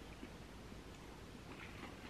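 Quiet room tone with faint small sounds of eating noodle soup with a fork: a soft click about a quarter second in and a few faint scrapes near the end.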